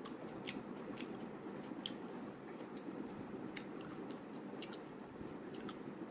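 A person chewing food close to the microphone, with soft irregular mouth clicks and smacks over a steady low background hum.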